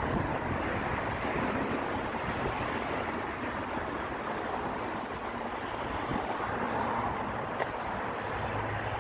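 Steady outdoor rushing noise, with wind buffeting the microphone of a handheld phone and a low rumble beneath.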